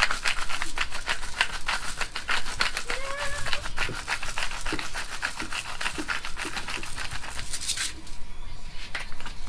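Hand pepper grinder being twisted, grinding peppercorns in a fast run of dry crackling clicks that stops about eight seconds in.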